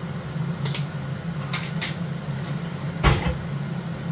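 A few light clicks as a small herb jar is shaken over a cooking pot, then a single louder knock about three seconds in, over a steady low hum.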